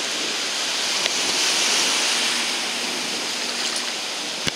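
Shallow surf washing and swirling over the sand at the water's edge, swelling about a second and a half in and easing off again, with one brief knock near the end.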